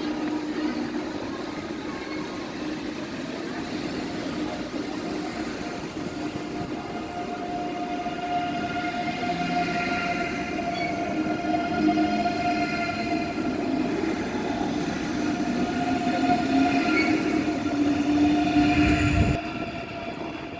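Deutsche Bahn ICE high-speed train moving along the platform close by: the rush of the carriages under several steady whining tones from its electric traction equipment, growing louder. It drops away suddenly near the end.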